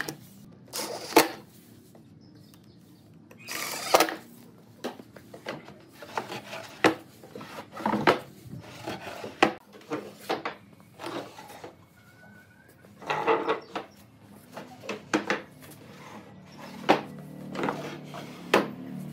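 Wooden knocks, clatter and sliding scrapes from a wooden sofa bed as its slatted seat frame is pulled out into a bed and a wooden drawer is slid open underneath. Sharp knocks come every second or two, with a few longer scraping slides.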